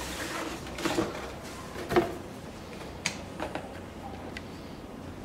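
Cardboard shoe box tray slid out of its sleeve with a papery scrape, then a sharp knock about two seconds in. A few light clicks and taps follow as the contents are handled.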